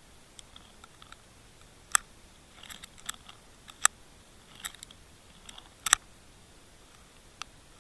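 Sharp clicks and knocks picked up underwater, about six separate ones, the loudest about two, four and six seconds in, with fainter ticks between, over a low steady hiss.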